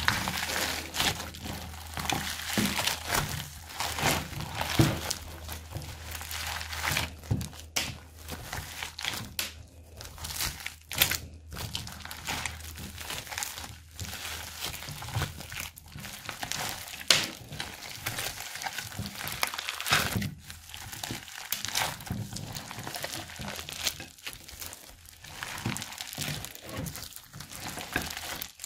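Foam-bead slime (floam) being squeezed and kneaded by hand: dense, irregular crackling and popping of the foam beads, with louder bursts at each squeeze.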